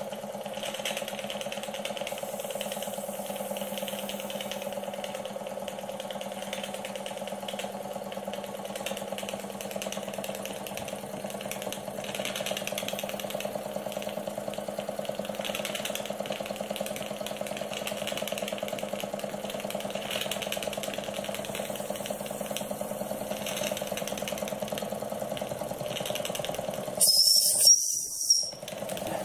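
Wilesco vertical-boiler model steam engine running steadily with a fast, even hum. Near the end its steam whistle is blown in a short, shrill blast with a hiss of steam, the loudest sound here.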